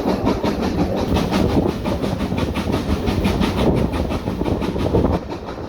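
A train running, with a fast, even beat of about five knocks a second. It drops in level near the end.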